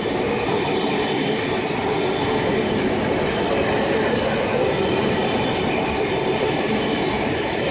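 An eight-car V set double-deck electric intercity train running past the platform: the steady noise of wheels on rails and the train's running gear, at an even level throughout.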